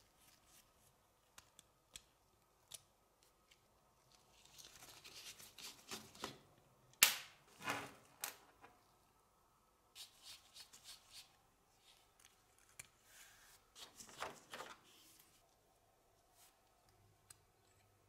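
Small metal clicks, scrapes and rattles from a flat-blade screwdriver prying at the worn metal case of a vintage camera-shaped lighter and from its small parts being handled. Two stretches of scraping are heard, with the sharpest click about seven seconds in.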